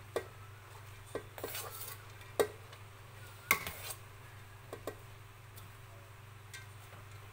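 Metal clinks and scrapes of a steel bowl against an aluminium cooking pot as boiled basmati rice is tipped in: a handful of sharp, ringing clinks, the loudest about three and a half seconds in.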